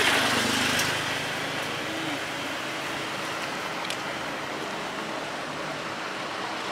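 Steady street background noise with a constant hum of traffic, a little louder in the first second.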